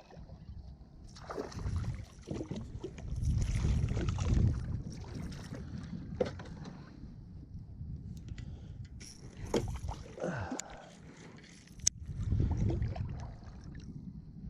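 Water sloshing and small knocks around a small fishing kayak, with low rumbling swells and a few sharp clicks.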